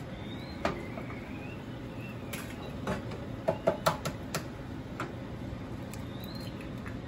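Eggs frying in oil in a nonstick pan with a steady sizzle, and sharp clicks and taps from an egg being cracked and added, most of them in a quick cluster a little past halfway.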